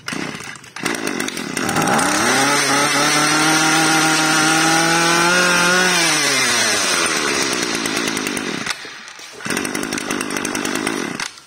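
Small two-stroke brush cutter engine running. It revs up about two seconds in, holds steady at high speed for about four seconds, then falls back to idle, with a short break near the end before it runs again.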